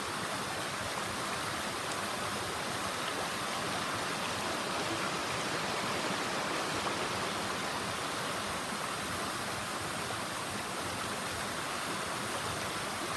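Clear mountain stream running, a steady even rush of water.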